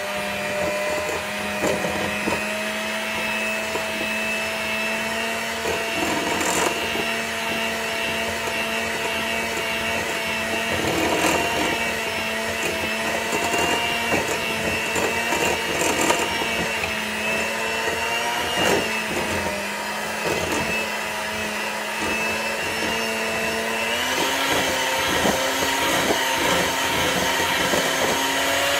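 Electric hand mixer running steadily, its beaters creaming butter and sugar in a glass bowl, with a few brief knocks. Its pitch steps up slightly near the end.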